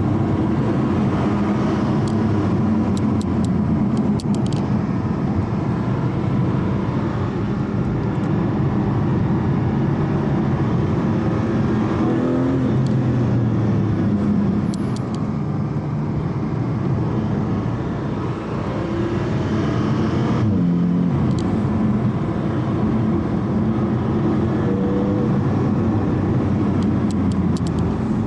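Porsche Cayman GT4's naturally aspirated flat-six running steadily at light load on a slow downhill drive, heard from inside the car over road and tyre noise. The engine pitch shifts about twelve seconds in and again around twenty seconds in.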